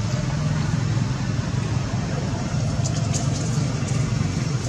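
Steady low drone of an idling engine, with a few faint high clicks about three seconds in.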